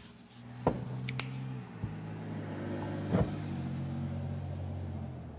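Small electric motor of a handheld power tool running at a steady speed for about five seconds, with a few sharp clicks along the way.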